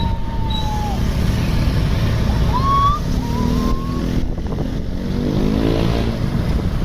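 A bus engine running with a low rumble, then revving up, its pitch climbing steadily from about three seconds in. A few short high whistle-like glides sound over it in the first seconds.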